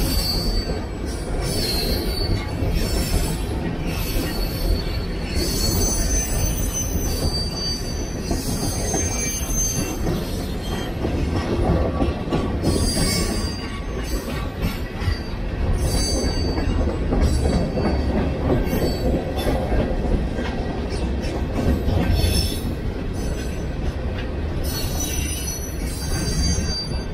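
Empty open-top freight cars of an aggregate train rolling past: a steady rumble of steel wheels on rail, with short, high-pitched wheel squeals coming and going every second or two.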